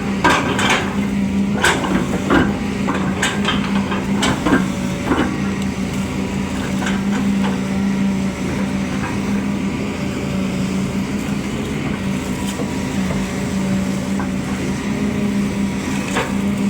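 Excavator's diesel engine running steadily under load, with a run of sharp knocks and cracks in the first few seconds and a few more near the end.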